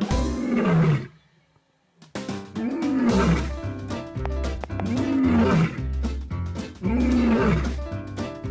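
Lion roaring again and again in a row of short rising-then-falling roars, over background music with a steady beat; everything drops out briefly about a second in.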